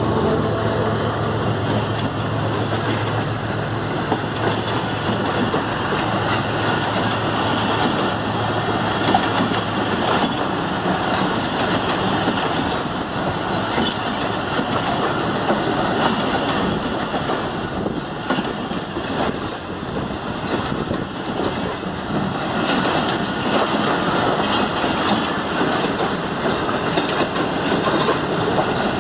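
Pakistan Railways Tezgam express passenger coaches rolling past close by: a steady rumble with wheels clicking over the rail joints. The GEU-40 diesel locomotive's engine hum fades out in the first few seconds.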